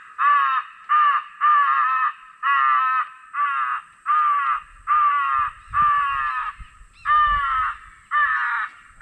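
Crow distress call sounding to bring in crows: harsh caws repeated about every 0.7 s, roughly a dozen of them.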